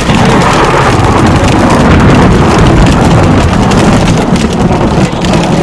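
Heavy rain mixed with hail pelting a car, heard from inside the cabin as a loud, dense hammering that swells sharply at the start and then holds steady.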